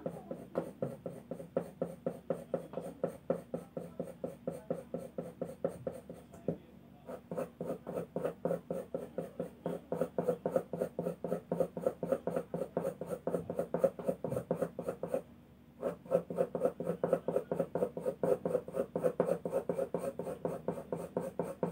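Soft graphite pencil scratching rapidly back and forth on drawing paper while shading hair, about six short strokes a second. The strokes pause briefly twice.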